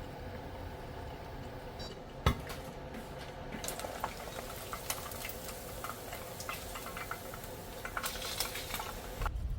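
Food frying in a pan with a steady sizzle and scattered clicks from a utensil, with one sharp knock about two seconds in. Near the end the sound changes abruptly to a lower rumble.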